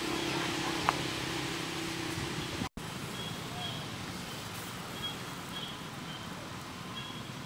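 Outdoor ambience with a steady engine hum for the first few seconds. After an abrupt cut it turns quieter, with faint short high chirps a few times.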